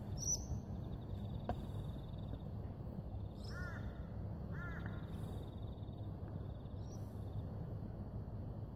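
A crow cawing twice, about a second apart, over a steady low background rumble.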